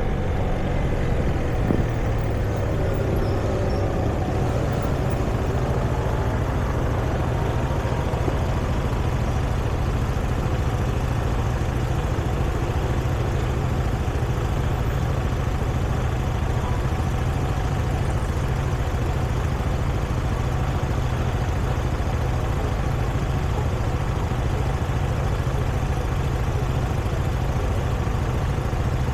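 Steady city street traffic noise: vehicle engines with a deep, constant rumble, and a brief gliding engine tone in the first couple of seconds.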